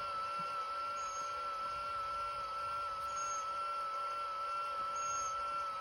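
Bubble machine running: a steady electric motor hum with a constant high whine, and a faint short high chirp about once a second.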